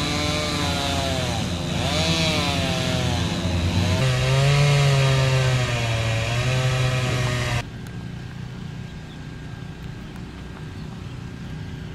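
Chainsaw running and revving, its engine pitch rising and falling. It cuts off suddenly about seven and a half seconds in, leaving a quieter steady rumble.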